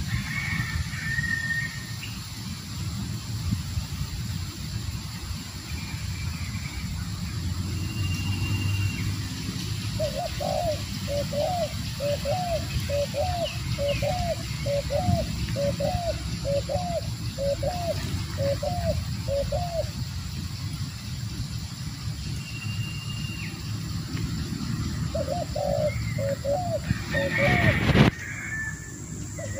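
Spotted dove cooing in a long run of short, repeated coos, about two a second, then a shorter run a few seconds later; small birds chirp faintly and high above it. A sharp, loud knock near the end is the loudest sound.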